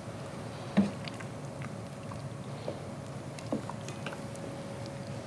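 A spoon working in a steel cooking pot, with a few light knocks against the pot, the sharpest about a second in. A faint steady hum underneath.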